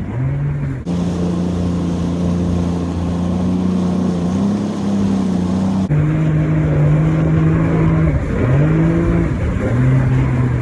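Jet ski engine running under way, its pitch dipping and rising several times as the throttle eases and opens again, with a rushing hiss of water and wind over it. The sound changes abruptly about a second in and again about six seconds in.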